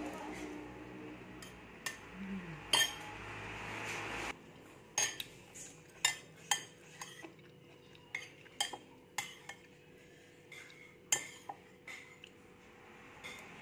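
Metal spoon clinking and scraping against a ceramic plate as rice is scooped up, in a run of short, irregular, sharp taps.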